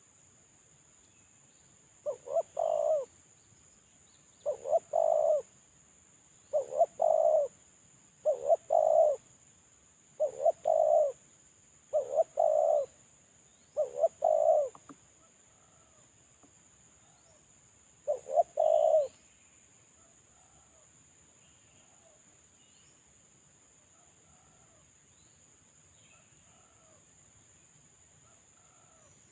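Male spotted dove cooing: eight calls, each a couple of short notes running into a longer coo. Seven come about every two seconds, then it pauses before one more call. Faint chirps of other small birds come between the calls.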